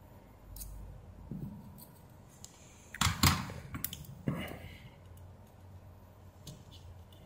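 Small tools being handled: light taps and clicks, then two louder clattering knocks about three and four seconds in, as a soldering iron is set down and tweezers are picked up.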